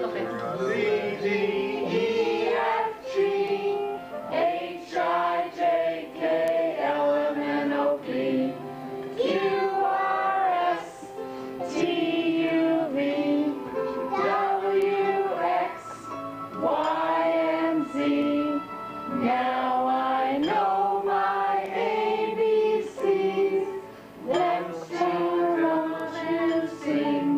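A group of people singing together, with a child's voice among them, in held notes and phrases.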